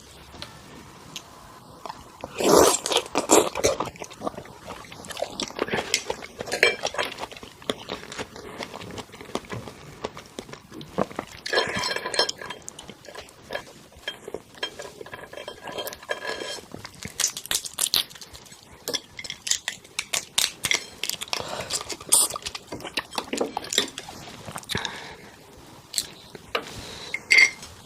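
Shell of a large sea crayfish being cracked and pulled apart by hand, with irregular crackles and snaps, and clinks against a plate or utensils.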